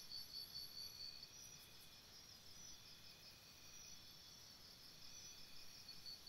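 Near silence, with faint, high insect chirping in quick, even pulses of about five a second, fading in the middle and returning near the end.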